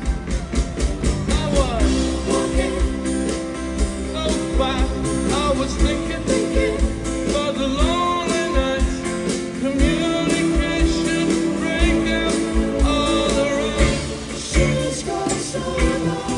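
A rock band playing live, a man singing lead at the microphone over strummed acoustic guitar and a steady drum beat.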